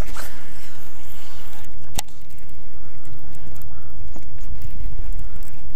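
Wind buffeting the microphone: a loud, steady, low rumble, with a sharp click at the start and another about two seconds in.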